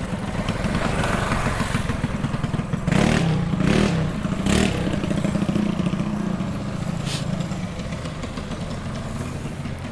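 Small single-cylinder mini bike engine idling with a steady low chugging. A few brief, sharp louder bursts come about a third of the way in and again later.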